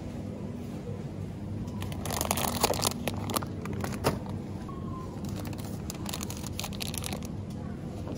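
Plastic bags of grated cheese crinkling as they are handled, in short bursts about two seconds in and again around six to seven seconds, over the steady low hum of a supermarket's refrigerated display cases.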